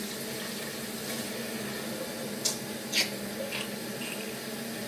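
Quiet room tone with a low steady hum, and three brief faint hissing sounds a little past the middle.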